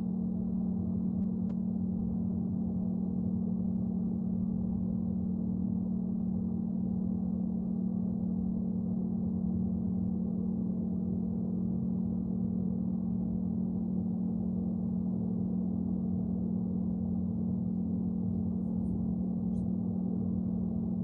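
A steady, unchanging low drone with a rough hum beneath it, from the ambient soundtrack of an experimental film.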